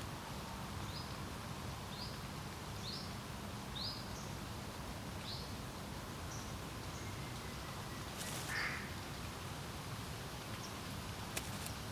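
Steady wind noise by a lake, with a songbird repeating short, high, upward-sliding notes for the first few seconds. A single louder, lower call or rustle comes about two-thirds of the way through, and a few sharp clicks come near the end.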